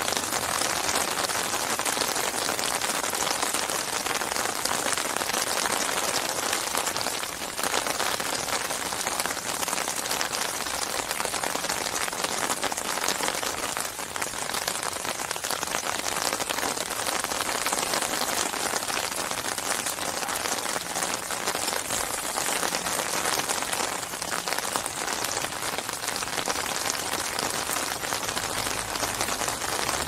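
Steady rain falling on the surface of a lake, a dense patter of many small drops hitting the water.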